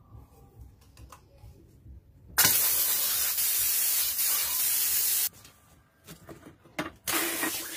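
Water jetting hard from an open PVC tap and spattering onto concrete: a loud hiss that starts suddenly about a third of the way in and cuts off abruptly some three seconds later. Near the end a second rush of running water starts.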